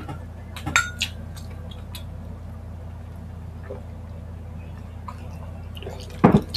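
Glass water mugs clinking together in a toast, a few sharp clinks with a short ring in the first second. Near the end comes a louder, duller knock.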